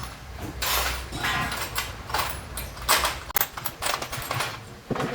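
Irregular clinks, knocks and rattles of tools and metal suspension parts being handled during reassembly.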